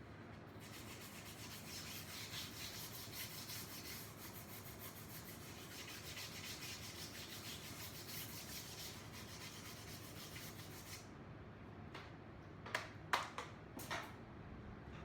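Sandpaper rubbing steadily over painted plywood, flattening the paint between coats. It stops about 11 seconds in, followed by a few sharp knocks near the end.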